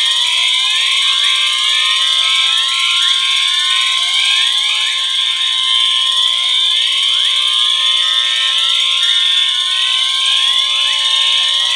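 Many fire alarm horns and sirens sounding together. Steady electronic tones mix with several overlapping rising whoop sweeps, repeating about once a second, and a fast pulsing higher tone.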